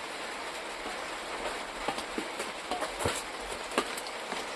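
Heavy rain falling steadily, with scattered sharp clicks and taps over it.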